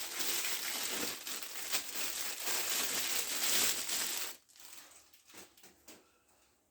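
Packaging wrap being crumpled and pulled off a new machine's parts during unboxing: dense crinkling that stops about four seconds in, followed by a few faint knocks.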